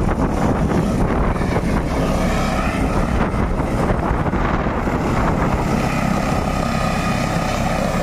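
Turbine helicopter setting down and sitting on its skids with the rotors still turning: a steady rotor and engine noise with a thin turbine whine over it. The rotor wash buffets the microphone with wind.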